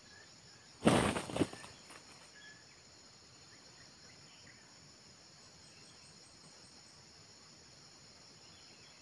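Red junglefowl wing flurry: a sudden loud burst of flapping about a second in, with two peaks over about half a second, as a second rooster joins the decoy. Insects drone steadily throughout.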